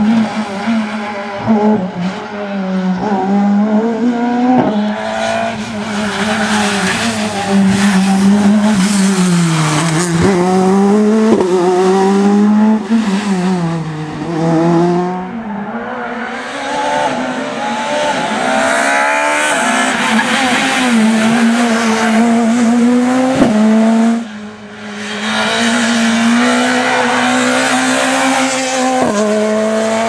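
Skoda Fabia S2000 rally cars' naturally aspirated 2.0-litre four-cylinder engines driven flat out on tarmac stages, revs climbing and dropping through quick gear changes and lifts into corners, with some tyre squeal. Several passes are cut together, so the sound jumps abruptly a few times.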